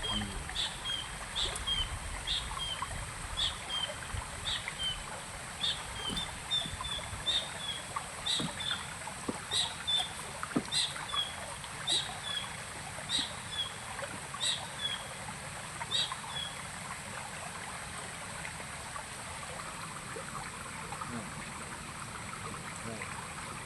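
A short, high-pitched call repeated about every two-thirds of a second, stopping about sixteen seconds in, over a steady background of running water.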